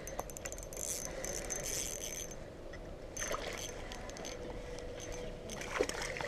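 Fishing reel being cranked to bring in a hooked fish: a quick run of clicks at the start, then two bouts of reel whirring.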